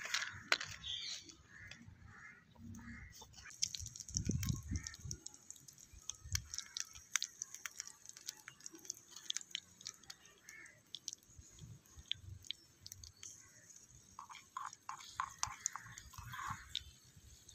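Light clicking and crackling from miniature clay-pot cooking over a small wood fire: a tiny spoon tapping and scraping the clay pots, with a few dull bumps of the pots being handled. Birds chirp in short bursts now and then.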